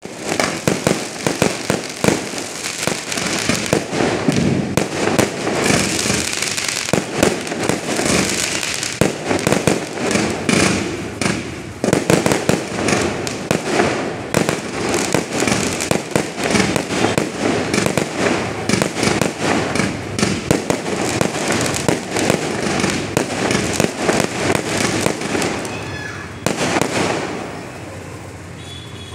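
Aerial fireworks bursting overhead: a dense, continuous barrage of bangs and crackling, dying down in the last couple of seconds.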